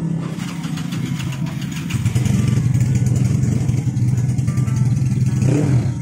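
A motorcycle engine running steadily at idle, growing louder about two seconds in.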